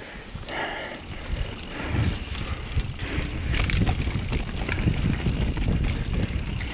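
Mountain bike riding over a rocky, rooty trail: tyres rolling on rock and dirt, the bike rattling with many scattered clicks and knocks, and a low rumble that grows heavier from about two seconds in.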